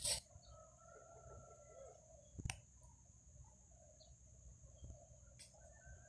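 Faint clucking of chickens, coming and going in wavering calls. A brief rustle right at the start and a single sharp click about two and a half seconds in.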